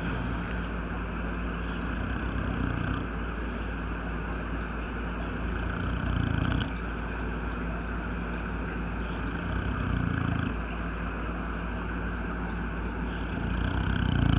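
Old English bulldog snoring, with a louder snore on each breath about every four seconds.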